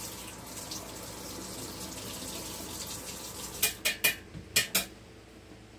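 Kitchen tap running into the sink as a steady rush of water, shutting off about three and a half seconds in. A quick run of about five sharp clicks of small hard items knocking in the sink follows.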